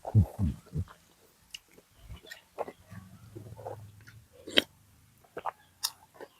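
A person eating stewed-beef noodle soup: chewing and mouth noises in irregular short bursts, with a few sharp clicks, the loudest two about four and a half and six seconds in.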